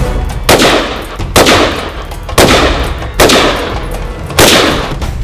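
Five single shots from an AR-style semi-automatic rifle, fired about a second apart at an irregular pace, each followed by a long decaying echo.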